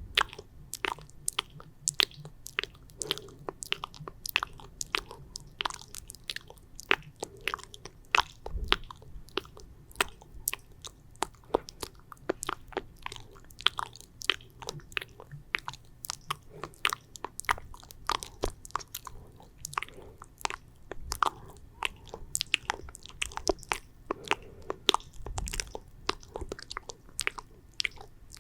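Close-miked wet, sticky mouth sounds: saliva clicks and smacks in a quick, irregular stream of several a second.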